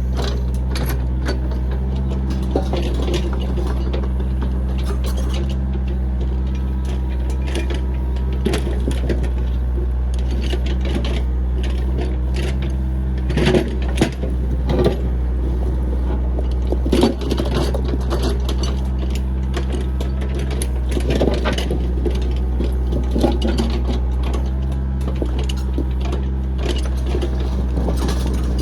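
Backhoe engine running steadily, with irregular knocks, clanks and scrapes from the machine working throughout.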